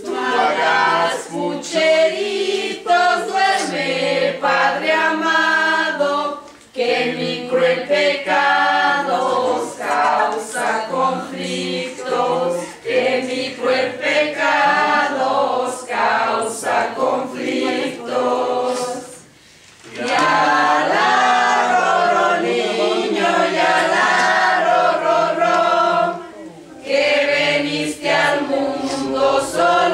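A group of men and women singing together in chorus, with short breaks between lines about 7, 19 and 26 seconds in.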